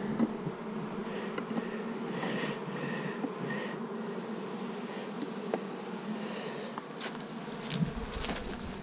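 Honeybees buzzing around an open hive as it is worked, a steady continuous hum. A few faint clicks and a soft low thump come near the end.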